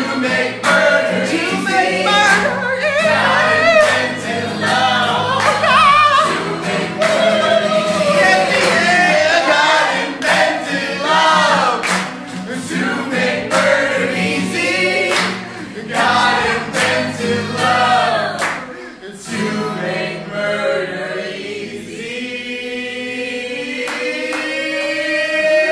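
Live progressive rock band playing, with several band members singing together in a choir-like chorus over drums and bass. About 19 seconds in, the drums and bass drop out, leaving held voices and instruments, with one sustained tone slowly rising toward the end.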